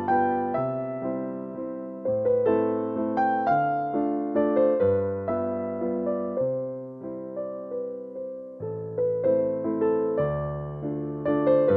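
Background music: a gentle solo piano or electric piano piece, single notes struck in a slow flowing melody over changing low bass notes, each note fading after it is struck.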